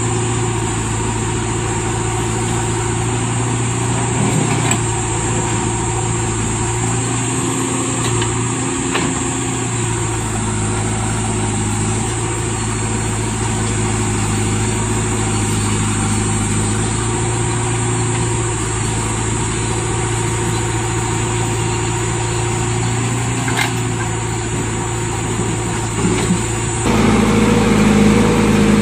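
Mahindra 275 DI XP Plus tractor's three-cylinder diesel engine idling steadily close by. Near the end the sound changes abruptly and grows louder as the JCB 3DX backhoe loader's engine, working its arm, joins the tractor.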